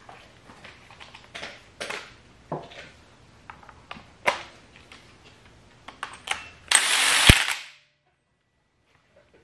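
Metal parts clinking and knocking as a timing gear and its bolt are fitted by hand, then a cordless impact wrench rattles for about a second, snugging the gear's bolt lightly before final torque.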